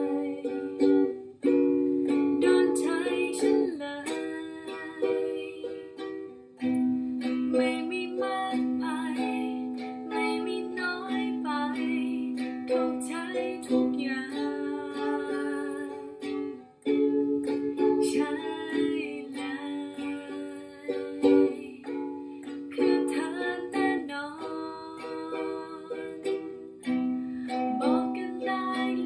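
Ukulele strummed in a steady rhythm, the chords changing every two to three seconds.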